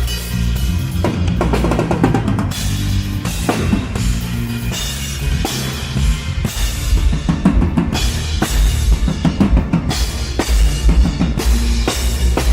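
A live band playing during a sound check, the drum kit out front with kick drum, snare and cymbals over low bass notes.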